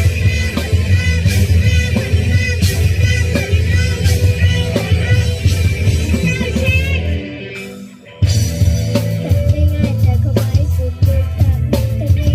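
Live rock band playing with singing, electric guitar, bass and drum kit. About seven seconds in the music thins almost to nothing for roughly a second, then comes back in abruptly at full level.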